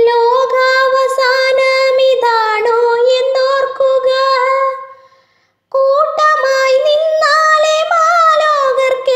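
A woman singing a melody in long, held notes, two phrases with a short break about five seconds in.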